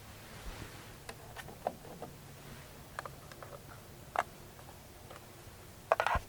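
Scattered light clicks and taps of small hard parts being handled, ending in a quick cluster of sharper clicks near the end.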